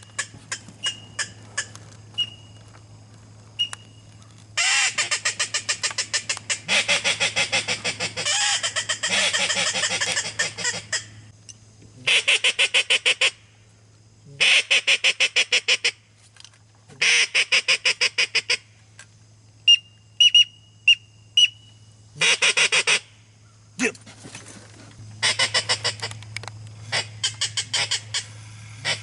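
Duck calling: loud strings of rapid quacks, about ten a second, in bursts of one to two seconds. Short high whistled peeps come near the start and again about twenty seconds in.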